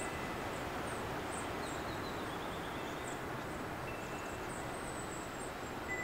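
Steady rush of wind with short, very high-pitched bird chirps scattered throughout. A single faint chime note rings about four seconds in.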